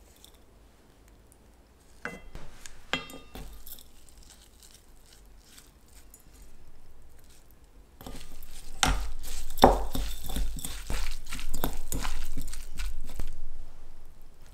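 Bare hands squeezing and tossing wilted spinach with seasonings in an enamel bowl, a wet, crackly squishing that starts about nine seconds in and runs for several seconds. Before that come a few light clicks and taps about two seconds in.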